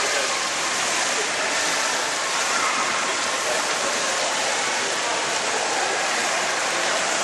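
Steady rushing, splashing water noise of an indoor swimming pool.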